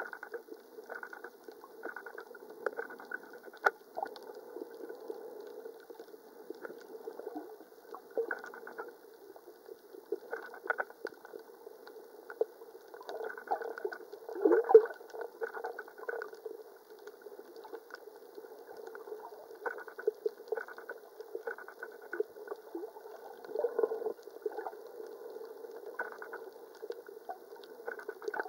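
Muffled underwater sound from a camera submerged in the sea: a steady wash of water with irregular gurgles and scattered short clicks.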